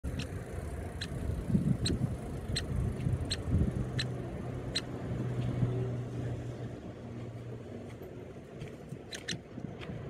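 Nuttall's woodpecker nestling calling from its nest cavity: a series of short, high calls about one every three-quarters of a second, fading to a few fainter ones near the end. Underneath is a louder low rumble, with a steady engine-like hum through the middle.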